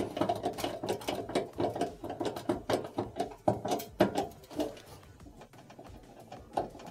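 A stiff screw being driven down into the gas range's sheet-metal cooktop with a hand screwdriver: a quick run of small squeaks and clicks that fades out about two-thirds of the way through.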